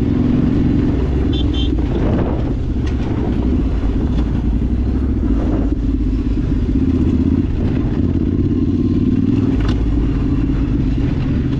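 Yamaha Ténéré 700 motorcycle's parallel-twin engine running steadily under way.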